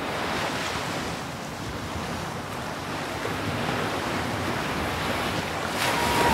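Steady wind buffeting the microphone over the wash of small waves around a kayak on open sea.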